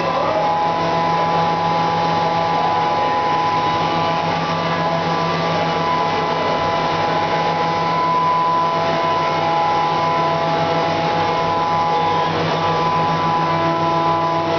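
Fadal 6030HT vertical machining center and its chip conveyor running, a steady mechanical hum with several steady tones.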